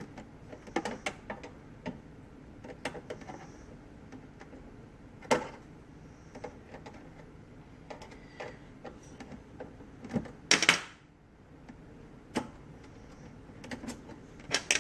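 Scattered plastic clicks, taps and knocks from a Keurig coffee maker's plastic housing being worked apart by hand. There is a sharp knock about five seconds in and a louder scraping clatter about ten and a half seconds in.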